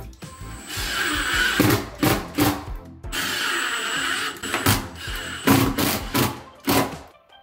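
Milwaukee cordless impact driver running in two bursts of about a second and a half each, driving screws through plastic toilet mounting brackets into the floor. Background music with a beat plays throughout.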